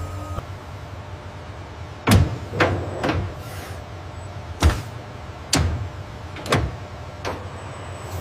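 Factory machinery: a steady low hum with about seven sharp mechanical clunks at uneven intervals, starting about two seconds in.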